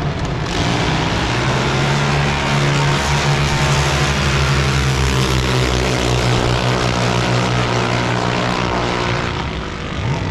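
An engine running at a steady speed, a loud, even drone that eases off slightly near the end.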